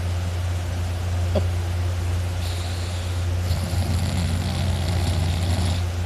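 A person snoring loudly while asleep sitting up, a rough, raspy snore on the breath in starting about two and a half seconds in and running almost to the end, over a steady low drone.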